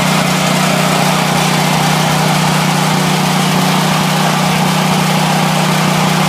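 Powerland portable generator's single-cylinder engine running steadily on natural gas, fitted with an E3 spark plug. It makes a loud, even hum with no change in speed.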